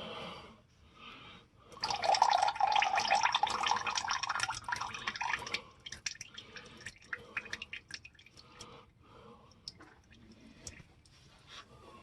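Used motor oil pouring out of the loosened oil filter on a Dodge 4.7 litre V8 and running off the filter ramp into a drain pan. It runs in a steady stream for about four seconds, starting about two seconds in, then breaks into scattered drips.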